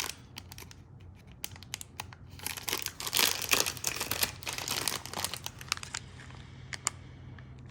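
Plastic packaging crinkling and tearing as a parcel is unwrapped, in a run of rustles that dies down about six seconds in. A faint steady hum sits underneath.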